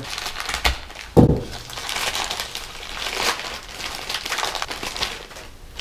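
Parts packaging crinkling and rustling as it is handled and opened by hand, with a soft thump about a second in.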